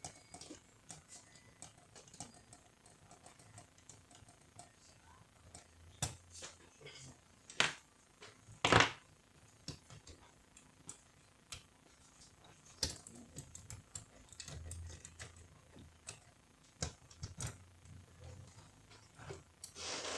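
Scattered clicks and light knocks of metal and plastic parts being handled as a Canon iR2016/iR2018 copier's fuser unit is taken apart, with two louder knocks a little over a second apart about eight seconds in.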